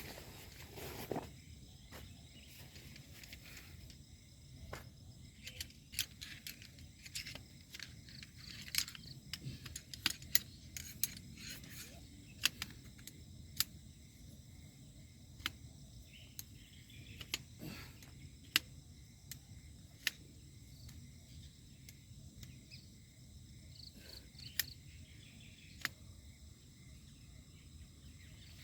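Night insects chirring steadily, with irregular sharp clicks and pops scattered throughout, some of them loud.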